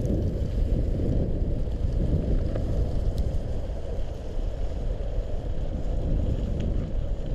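Wind buffeting the microphone of a camera carried on a mountain bike rolling down a trail, a steady low rumble.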